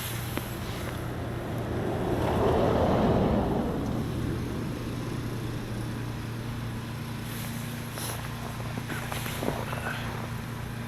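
Steady low hum of an idling engine, with a louder rushing, scraping noise that swells and fades about two to four seconds in.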